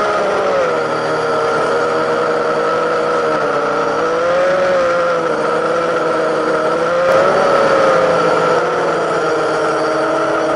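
Drone's electric motors and propellers whining steadily, heard through the camera on board; the pitch wavers up and down, rising a little about four and a half and seven and a half seconds in.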